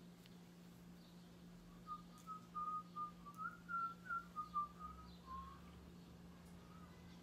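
A person whistling a short tune of quick notes that step up and down, from about two seconds in for about three and a half seconds, over a steady low hum.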